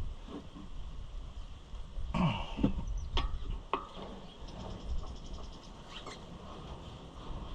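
Hand tools clicking and knocking on the tractor's clutch and pressure plate bolts, with a brief run of fast, even ratchet-like ticks about halfway through. A short cough-like sound comes about two seconds in.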